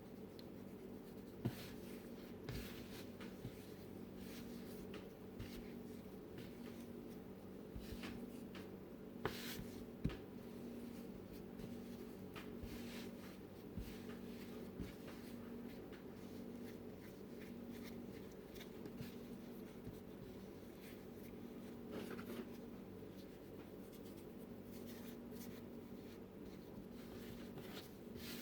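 Hands kneading bread dough on a floured work surface: faint rubbing and pressing strokes with a few light knocks, over a steady low hum.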